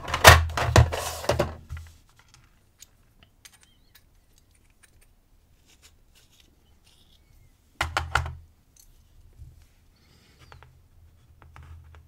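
Small metal parts clinking and rattling by hand: a padlock plug with its key in it being worked along an aluminium plug follower while the lock is taken apart. The loudest clatter is in the first two seconds, followed by scattered light clicks and a second short clatter about eight seconds in.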